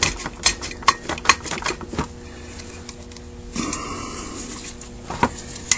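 Small metal carburetor parts of a Carter WA-1 clicking and clinking as they are handled during disassembly: a quick run of clicks at first, a brief scraping sound just past halfway, and two more clicks near the end.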